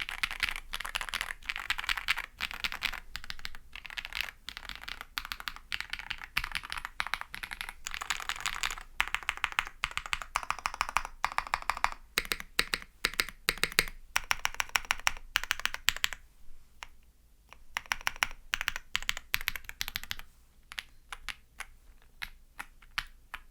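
Typing on a kbdfans Tiger80 Lite custom mechanical keyboard with a gasket-mounted PC plate and lubed Bolsa ZAKU switches, keys clicking in quick runs. After about 16 seconds the keystrokes thin out to slower, scattered presses.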